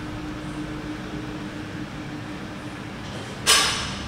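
Steady low room hum from ventilation, broken about three and a half seconds in by one short, sharp rush of noise that fades within half a second.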